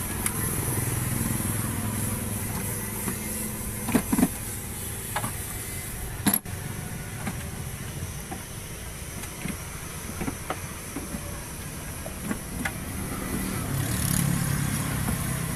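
Scattered clicks and knocks of parts being handled as an intake manifold is worked free of a car engine. There are two sharp knocks about four seconds in and a louder one about six seconds in, over a steady low background rumble.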